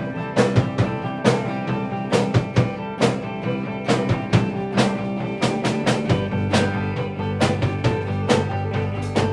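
Instrumental break in a band's song: a drum kit keeps a steady beat over bass and sustained chords, with no singing. The bass moves to a lower note about six seconds in.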